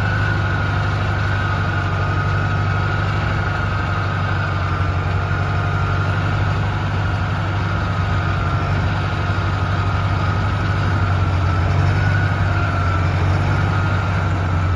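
Caterpillar 621 elevating scraper's diesel engine running steadily at low speed, with a thin high whine over the deep engine note that wavers slightly in pitch.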